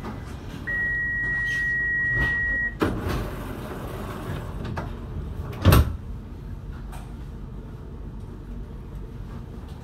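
Alstom Citadis tram standing at a stop: the door-closing warning sounds as one steady high beep for about two seconds, then the doors shut with a knock. A louder thud comes about three seconds later, over a steady low hum.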